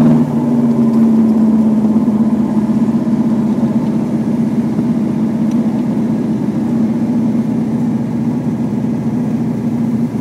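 1968 Chevrolet Corvette's V8 engine heard from the driver's seat on a slow drive, easing off just as the sound begins and then running steadily at a light cruise.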